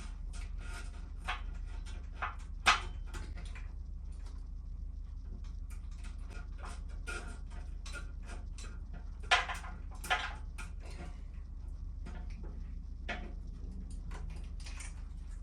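Irregular light clicks and knocks of hand tools and parts being handled during motorcycle reassembly, with a few sharper knocks: one about three seconds in and two close together past the middle. A steady low hum runs underneath.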